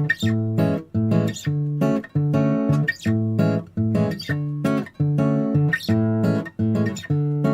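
Acoustic guitar strumming chords in a steady rhythm, with short breaks between strokes about twice a second.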